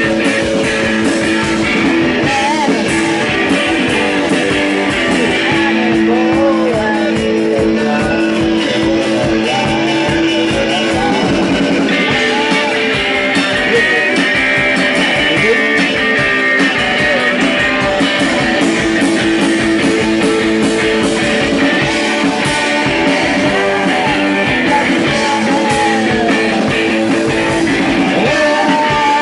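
A rock band playing live: electric guitars holding sustained chords over steady drums and bass, with a voice singing at times.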